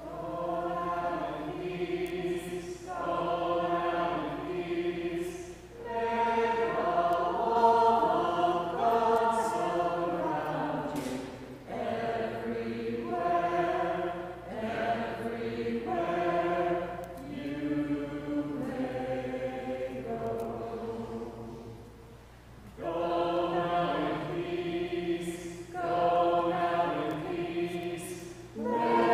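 A congregation and song leaders singing a short hymn together, in phrases with brief breaks between them.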